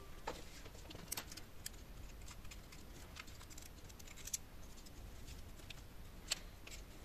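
Faint, scattered clicks and taps from the opened Zoom H3-VR recorder's plastic housing and circuit boards being handled and turned over in the fingers. The sharpest clicks come about a second in, just past four seconds and near the end.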